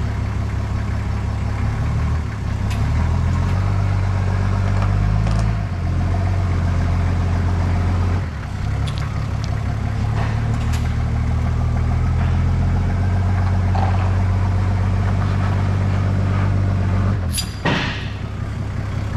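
Toyota Land Cruiser pickup's engine running steadily in low range while it pulls a chain dragging a bulldozer track, its pitch stepping up and down a few times. A sharp metallic clank comes near the end.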